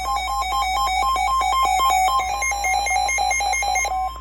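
Rapid electronic beeping tones jumping back and forth between a lower and a higher pitch in a fast, melody-like sequence; near the end the sequence stops and a single steady tone is left.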